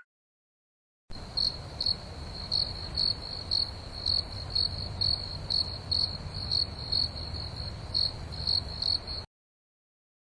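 Cricket chirping steadily, about two chirps a second, over a low background rumble; it starts about a second in and cuts off suddenly about nine seconds in.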